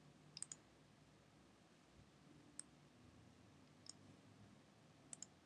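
Faint computer mouse clicks over near silence: a quick double click about half a second in, two single clicks in the middle, and another double click near the end.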